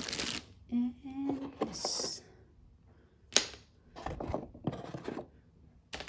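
Unboxing handling sounds: packaging crinkling, then small hard plastic parts being handled, with one sharp click about three and a half seconds in and light clicking and rattling a second later.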